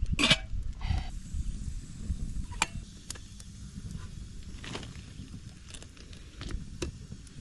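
A burning beach bonfire crackling, with a sharp snap every second or so over a steady low rumble. There is a brief louder rustling burst near the start.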